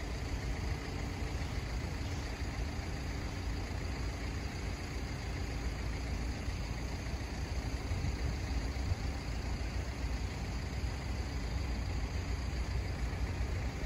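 Steady outdoor noise: a low rumble with a hiss over it, like wind on the microphone, with no alarm tones or train heard.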